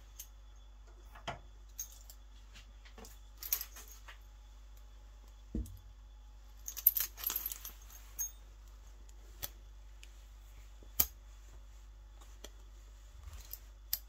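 Steel handcuffs and waist chain clinking and jingling in short scattered bursts as the cuffed hands move, with one dull knock about five and a half seconds in.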